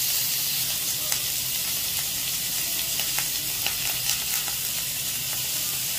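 Yogurt-marinated chicken and green pepper skewers shallow-frying in a little oil in a nonstick pan: a steady sizzle with a few small pops.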